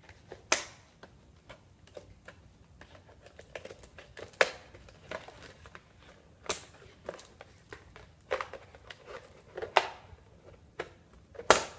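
A toy's retail packaging being opened by hand: scattered sharp clicks and snaps of plastic and cardboard, with about five louder snaps spread through.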